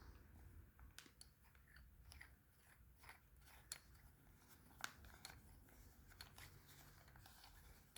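Near silence with faint scattered clicks and crackles of a Scrubba plastic wash bag being handled and turned.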